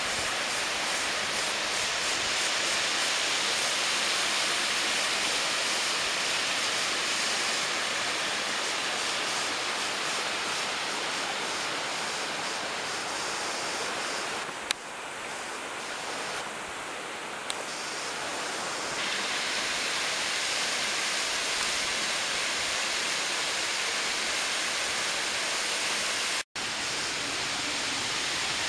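Hiilawe Falls, a tall, thin waterfall, pouring down a cliff into its plunge pool: a steady rushing hiss. There is a single sharp click about halfway through, the rush dips a little for a few seconds after it, and the sound cuts out for an instant near the end.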